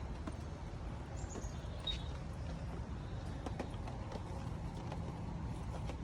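Faint, scattered light clicks and taps of metal parts being handled while the front sprocket is fitted onto the ATV's output shaft, over a steady low rumble.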